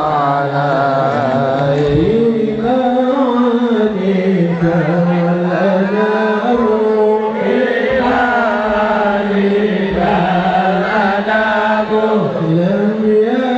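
Background music: a voice chanting a slow devotional song, with long held notes that bend and waver in pitch.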